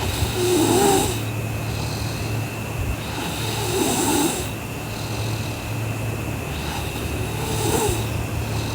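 A sleeping girl snoring: three snores, one about every three and a half to four seconds, over a steady low hum.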